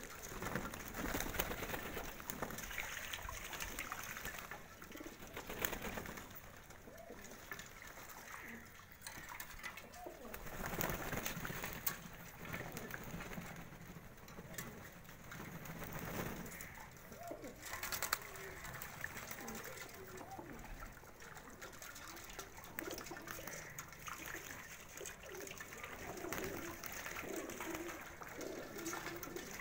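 A flock of domestic pigeons cooing while they bathe in shallow water basins, with irregular splashing and wing flaps.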